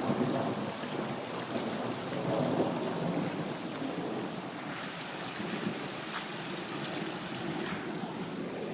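Floodwater running fast just below, a steady rushing wash of water noise.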